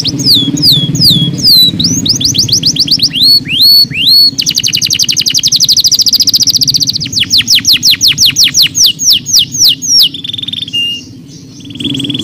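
Domestic canary singing a fast, varied song: rapid trills of repeated notes, swooping notes, then a run of slower, loud repeated notes and a few short held whistles near the end. A low, steady background drone sits beneath the song at the start and the end.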